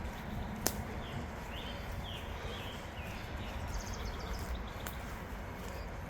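Outdoor sound with a steady low rumble, a few short bird chirps, and one sharp click about half a second in.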